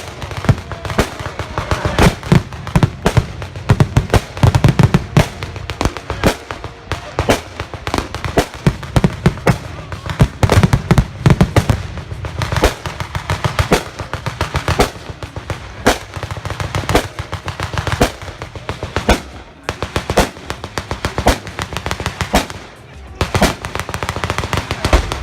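Simulated gunfire and pyrotechnic bangs, sharp cracks coming in rapid volleys of several a second, with a brief lull about three-quarters of the way through.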